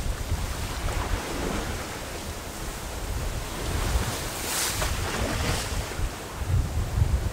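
Wind buffeting the microphone in uneven gusts over the soft wash of small waves moving through floating slush ice, with two brief hissing swishes a little past halfway.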